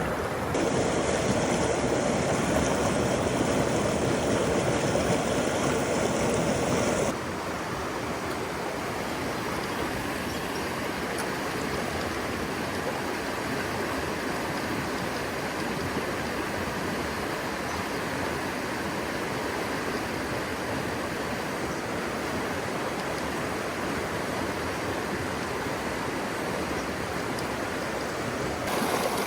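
Mountain stream water rushing steadily. About seven seconds in the sound drops abruptly to a softer, even rush.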